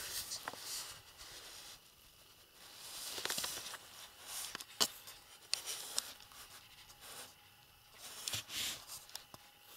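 Faint handling noise from an angler jigging over an ice hole: soft rustling and scraping in a few short stretches, with several sharp single clicks and taps.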